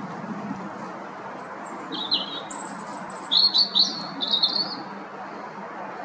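European robin singing one territorial song phrase of high, thin, varied notes, starting about a second and a half in and ending with a quick run of notes about five seconds in.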